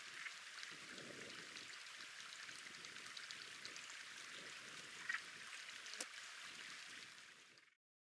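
Faint outdoor ambience: a steady hiss with a brief high sound about five seconds in and a sharp click a second later, fading out near the end.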